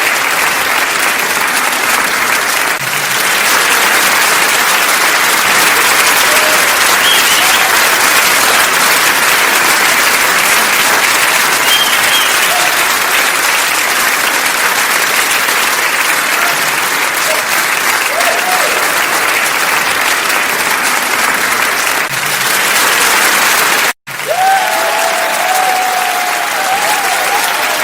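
A crowd applauding: dense, steady hand clapping with a few scattered cheering voices. A little before the end it cuts out for an instant, then applause resumes with more cheering.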